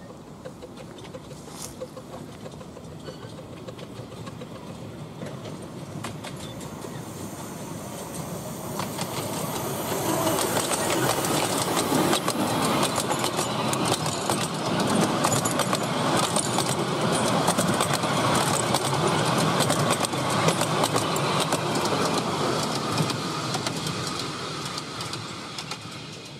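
A 10¼-inch gauge miniature steam train and its passenger carriages approaching and rolling past, the wheels clicking over the track, loudest in the middle and fading away near the end.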